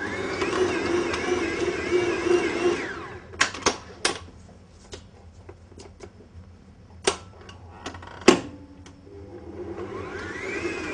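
Kenwood stand mixer kneading bread dough with its dough hook, the motor running with a wavering hum, then winding down as it is switched off about three seconds in. A few sharp knocks follow as the mixer head and dough hook are handled. Near the end the motor starts again, its pitch rising as it speeds up.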